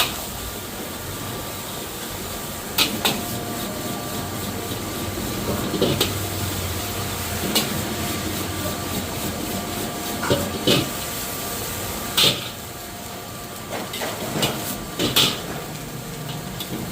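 A metal spatula striking and scraping a wok in sharp, ringing clanks at irregular intervals every second or two, over a steady hiss of rice frying over high heat.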